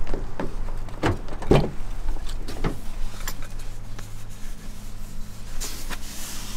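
Nissan X-Trail's door handle pulled and the latch clicking open, then a few more clicks and knocks as the door swings open, over a low steady hum.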